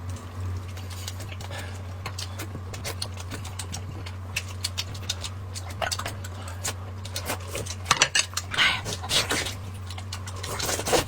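Eating sounds: scattered small clicks and smacks of chewing and utensils, busier about eight seconds in, over a steady low hum.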